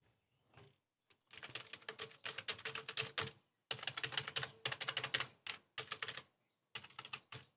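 Typing on a computer keyboard: quick runs of key clicks in several bursts with short pauses between them.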